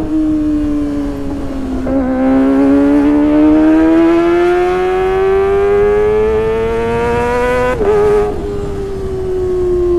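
Kawasaki ZX-25R's 250 cc inline-four engine through a Sportisi Motorsport SRX aftermarket exhaust, running at high revs. Its pitch sags slightly, then from about two seconds climbs steadily for nearly six seconds before dropping abruptly near eight seconds and easing down.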